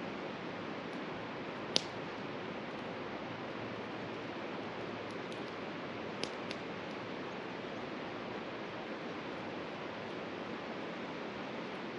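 Steady rush of a mountain river with a campfire popping over it: one sharp crack about two seconds in, and two smaller ones close together about six seconds in.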